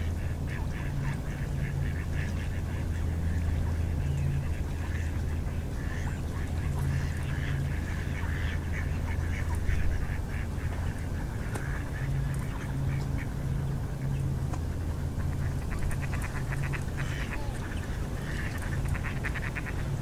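A flock of ducks, mostly mallards, calling: repeated quacks throughout, with rapid runs of chattering calls near the end, over a low steady rumble.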